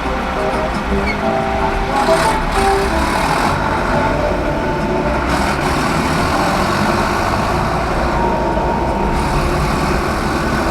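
Steady motor-vehicle rumble and road noise, with faint music beneath it.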